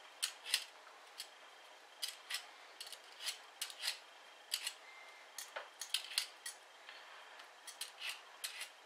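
Metal vegetable peeler scraping the skin off a raw beetroot in short rasping strokes, two or three a second in uneven runs.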